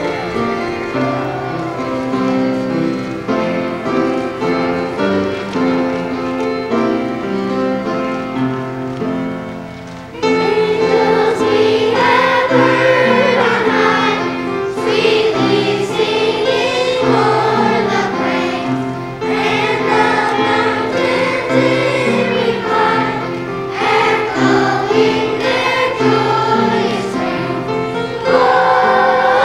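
Children's choir singing a Christmas song with instrumental accompaniment. The accompaniment plays alone at first, and the voices come in about ten seconds in.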